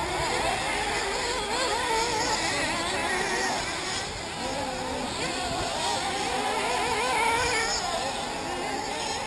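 Several 1/8-scale nitro RC buggy engines buzzing at high pitch, overlapping, each rising and falling in pitch as the buggies accelerate and back off around the track.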